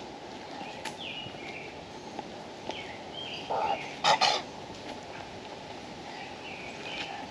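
Birds chirping in short calls, again and again, over a steady outdoor hiss. About four seconds in, a louder harsh sound comes twice in quick succession.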